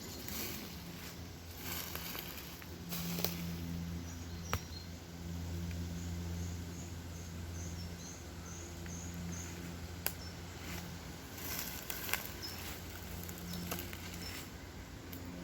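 Outdoor forest ambience: irregular rustling and crunching, like steps on leaf litter, over a steady low hum. A bird gives a run of about eight short high chirps in the middle.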